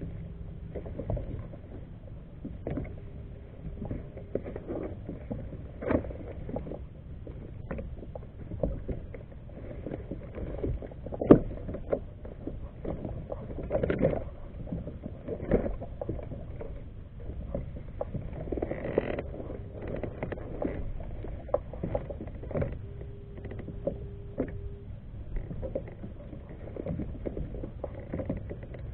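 Water lapping against a plastic fishing kayak's hull, with scattered sharp knocks and clicks, the loudest about 11 seconds in.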